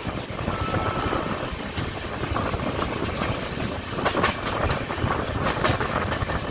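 Passenger train running along the track, heard from alongside the moving coach: a steady rolling rumble of wheels on rails, with a few sharp clacks about four to six seconds in as the wheels cross rail joints.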